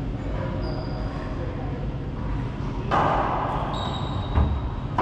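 A racquetball bounced once on the hardwood floor of an enclosed court, a short hollow thump about four and a half seconds in, over a steady low room hum. A sharper echoing sound comes about three seconds in.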